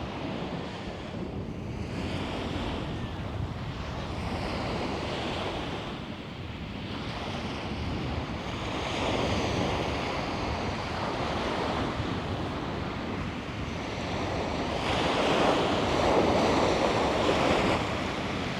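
Sea waves breaking and washing up the beach, rising and falling in slow swells, the biggest near the end, with wind buffeting the microphone.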